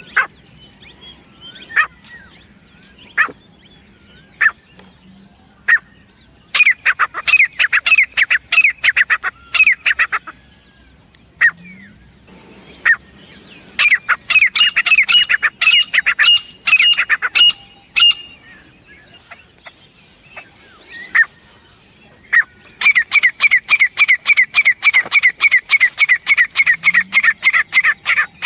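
Grey francolin calling: a few single sharp notes spaced a second or so apart, then three long runs of fast, ringing notes repeated about five times a second.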